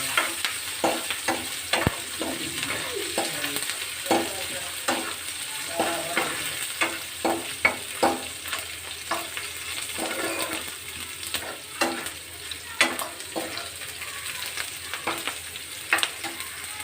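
Chopped onions and green chillies sizzling in hot oil in a pan, frying toward brown, with a spoon scraping and knocking against the pan many times at an irregular pace as they are stirred.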